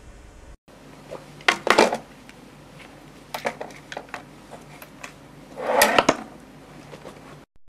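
Drawers being pulled open and things inside rummaged through, clattering in three bursts: about a second and a half in, around three and a half seconds, and near six seconds. Heard in a small room.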